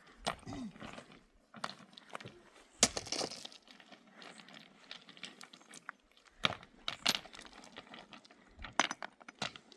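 A string of irregular sharp clinks and knocks of hard objects being handled, the loudest about three seconds in.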